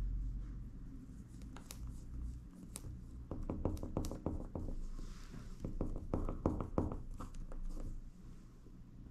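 Fingertips rubbing, pressing and tapping on a silicone screen-protector film as it is smoothed onto a Garmin Forerunner 955's watch face. A quick run of small clicks and scratchy rubs comes from about three to seven seconds in.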